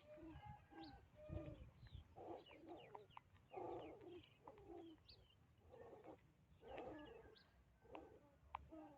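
Faint animal calls: short low calls repeated about once a second, with thin chirps over them.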